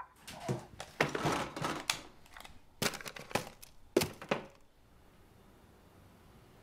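A quick, irregular series of sharp knocks and crackles, about a dozen in four seconds, dying away after about four and a half seconds.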